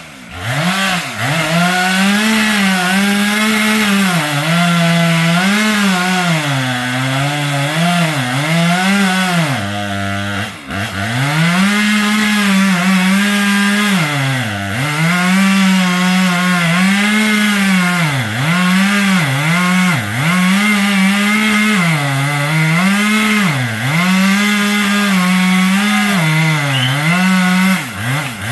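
Two-stroke chainsaw running at high revs and cutting wood. Its pitch sags again and again as the chain bites and picks back up between cuts, and it eases off briefly about a third of the way through.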